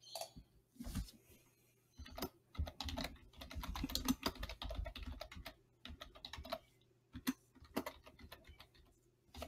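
Typing on a computer keyboard: irregular runs of key clicks, with a dense flurry from about two to five and a half seconds in and scattered keystrokes around it.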